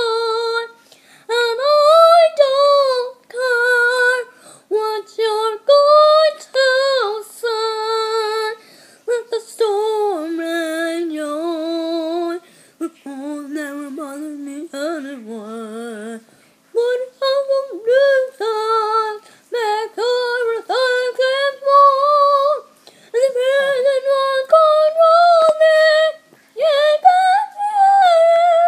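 A young girl singing loudly in short phrases, holding notes with a wide, wavering vibrato; about halfway through her voice drops to lower notes before climbing back up.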